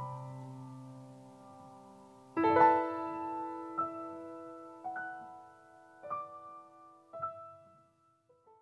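Slow solo piano music: a held chord dies away, a new chord is struck about two and a half seconds in, then four single notes follow about a second apart, fading out near the end.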